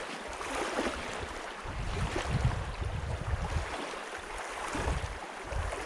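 Gusty wind buffeting the microphone over a steady rush of water.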